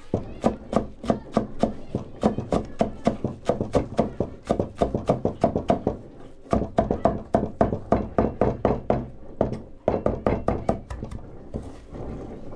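Rapid, even knocking, about three sharp strikes a second, with two short breaks about six and ten seconds in, stopping a little before the end.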